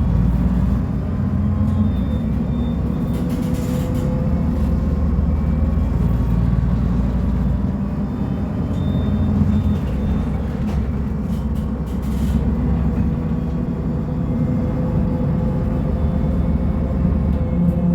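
Diesel engine of a Mercedes-Benz O500U city bus running steadily with a deep rumble, a faint whine riding over it that drifts slightly in pitch.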